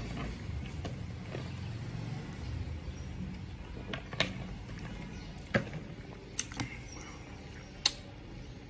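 Plastic water bottle being handled and its cap twisted open: a few sharp clicks and crackles from about four seconds in, over a low steady rumble.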